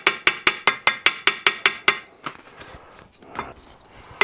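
Small ball peen hammer tapping gasket paper against the edge of a cast-iron steam engine casting, the casting's edge cutting the jointing paper: quick light taps with a slight metallic ring, about six a second, that stop about halfway through, leaving only a few faint soft sounds.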